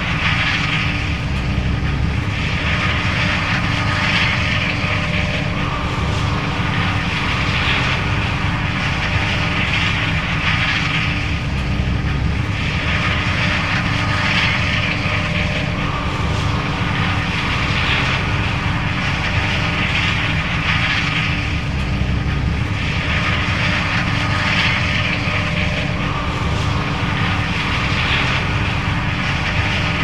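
John Deere S660 combine harvester running under load while harvesting corn: a steady, loud engine drone with a higher rushing sound that swells and fades about every three seconds.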